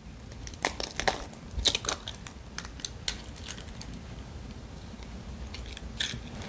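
Eggshell being broken open by plastic-gloved hands over a bowl: a scatter of small sharp clicks and crinkles as the shell cracks and the glove rustles, busiest in the first two seconds and again near the end.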